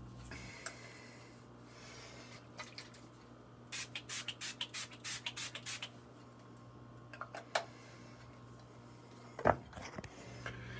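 Pump bottle of makeup setting spray being spritzed: a quick run of about eight short hisses in the middle, then two more a little later. A louder short knock near the end.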